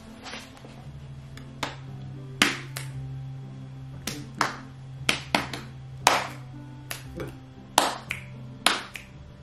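Sharp finger snaps and hand slaps, about a dozen irregularly spaced cracks, over quiet background music.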